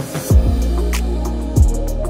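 Background music: steady held chords with a deep bass note that drops in pitch, heard twice.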